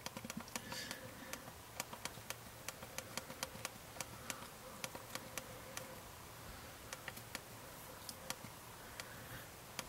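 BlackBerry Storm's SurePress touchscreen clicking under the thumbs as letters are typed on its on-screen keyboard: faint, irregular clicks, two or three a second.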